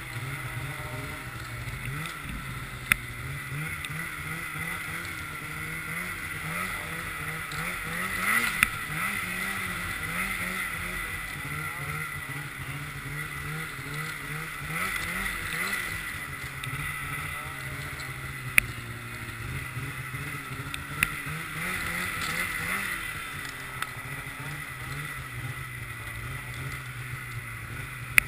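Polaris snowmobile engine running on the trail, its pitch rising and falling again and again as the throttle is worked, with a steady hiss from the track. A few sharp knocks break in now and then.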